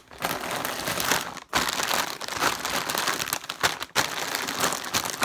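Crinkly chip bags being shuffled and rustled, a dense crackling with two short pauses.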